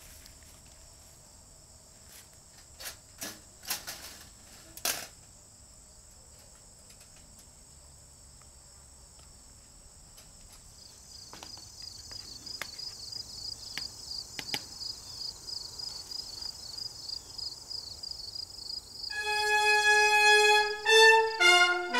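Insects chirping in long grass, a steady high buzz with a pulsing trill joining about halfway, and a few sharp metal clicks early on from a wire cage trap being handled. Brass music comes in near the end and is the loudest sound.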